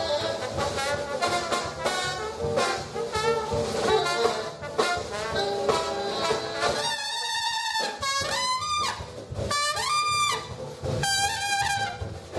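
A frevo de rua band playing: trombone and alto saxophone over percussion. About seven seconds in, the full band drops out and a lone trumpet carries on in short solo phrases.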